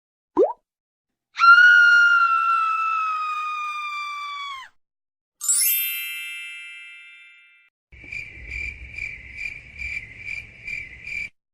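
A run of editing sound effects: a short rising blip, then a long held whistle-like tone that sags slightly in pitch, then a bright ding that rings and fades. Last comes a high pulsing chirp, about two and a half pulses a second, like a cricket.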